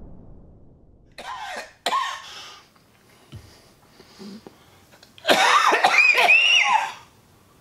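The last of an explosion's rumble dies away, then a man coughs twice, and about five seconds in he breaks into a longer, hoarse coughing fit.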